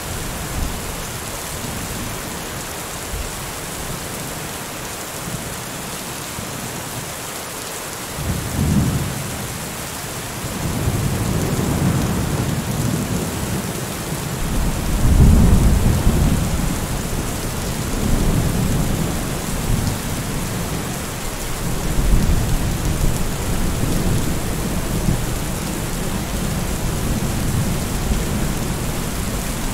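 Steady rain with rolling thunder: a short rumble about a third of the way in, then long low rumbles that swell and fade through the rest, loudest around the middle.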